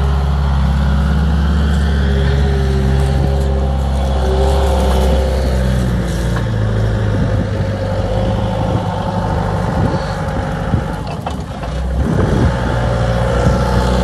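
2007 Bobcat A300 skid steer's diesel engine running as the machine drives and turns on grass. The engine note is steady at first, then shifts about halfway through, with irregular knocks and rattles for several seconds before it settles again.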